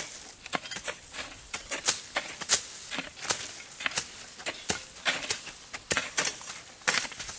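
Irregular crackling and rustling of cassava leaves and stems as people push and step through a dense cassava field: sharp crisp snaps, about two or three a second.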